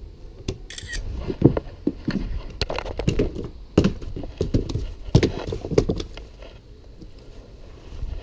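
Largemouth bass flopping on wooden dock boards: a run of irregular slaps and thumps that dies away near the end.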